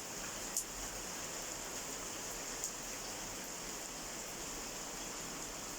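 Steady rain falling, an even hiss with a few sharp single drop taps, about half a second in and again near the middle.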